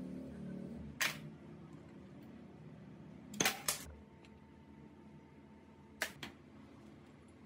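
Sharp metallic clicks of needle-nose pliers and small parts knocking against a Honda Super Cub C50 cylinder head while working parts out around the camshaft: one click about a second in, a quick pair about halfway, and another pair near the end.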